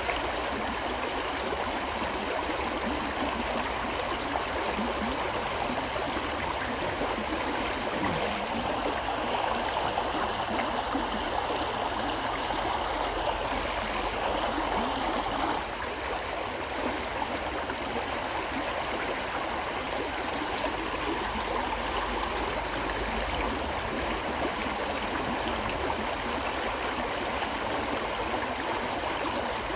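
River flowing steadily, a continuous rush of running water that gets a little quieter about halfway through.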